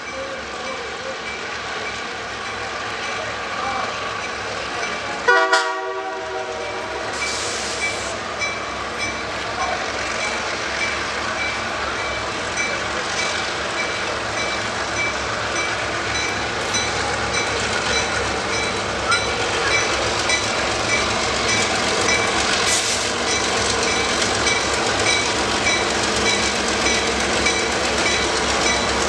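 EMD E8 diesel locomotives in Pennsylvania Railroad paint approaching and passing with their passenger train, the engine and wheel-on-rail noise slowly growing louder. A short horn blast sounds about five seconds in.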